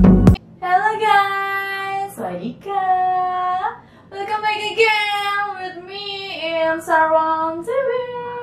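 A woman singing alone in a high voice, short phrases of held notes with brief pauses between them. A loud electronic intro tune cuts off just as it begins.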